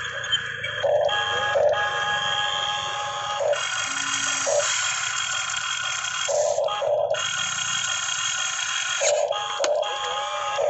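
Huina RC excavator's small electric motors and plastic gearboxes whining as its arm, bucket and turret are worked, the whine stopping, restarting and changing pitch every one to three seconds as different functions are switched.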